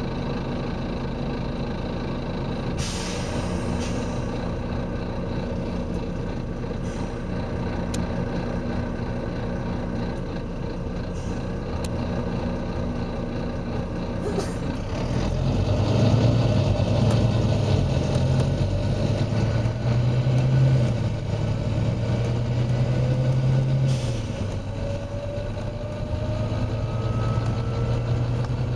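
Volvo B9TL double-decker bus with its nine-litre six-cylinder diesel running steadily, and three short blasts of air hiss from the air system. About halfway the engine gets louder as the bus pulls away and works up through its gears, its pitch rising and dropping at each change, with a rising whine near the end.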